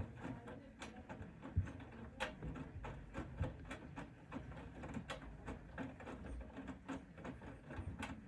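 Bosch Serie 4 front-loading washing machine tumbling its load: the drum turns the wet laundry with a low rumble and a quick, uneven run of clicks and knocks. The tumble dies away at the very end.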